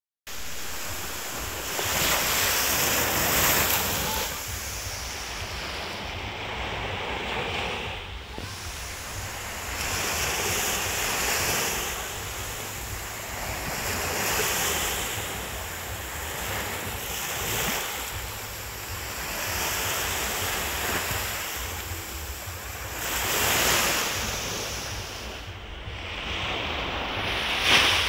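Ocean surf washing up on a sandy beach, each wave swelling and fading away every few seconds.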